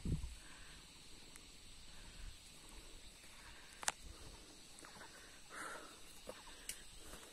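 Quiet outdoor ambience with a faint, steady, high insect drone. It is broken by a soft low thump at the start, a sharp click about four seconds in, and a brief rustle between five and six seconds.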